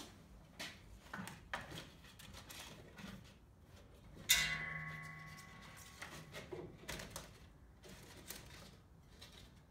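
Handling noises as a sanding belt is fitted over the wheels of a homemade 2x72 belt grinder: scattered clicks and knocks, and about four seconds in a single sharp metallic clang that rings on for a second or so before dying away.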